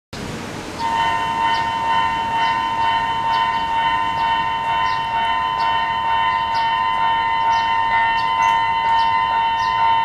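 Japanese railway level-crossing alarm on the Tobu Kameido Line, starting about a second in: a high, eerie electronic ringing that repeats on a steady beat.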